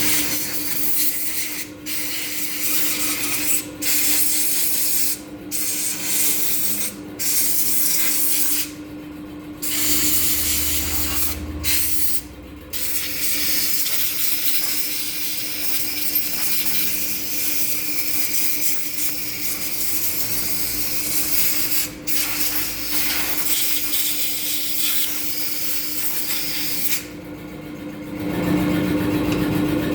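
High-pressure spray hissing in repeated bursts that cut off and restart every second or two, over a steady motor hum. Near the end a lower, engine-like running sound comes in.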